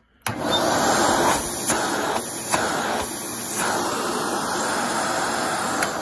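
Airway Sanitizor Mark V vacuum cleaner switched on about a quarter second in. It runs with a steady loud rush of motor and air drawn in through its open inlet, with no hose fitted. A few brief changes in the sound come as a hand is held at the inlet to feel the suction.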